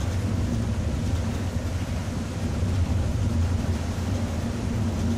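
Steady low drone of a Volvo B7R bus's diesel engine cruising, heard inside the cabin, under an even hiss of rain and tyres on the wet road.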